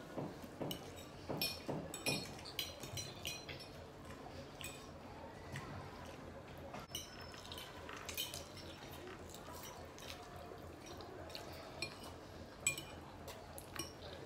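Close-up wet mouth sounds of a man slurping and chewing spaghetti in tomato sauce: many short smacks and sucks, with occasional fork clinks on the plate.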